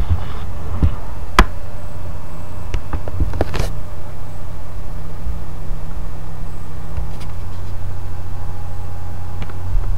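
A steady low electrical hum, with a few sharp clicks and knocks, the loudest about a second and a half in.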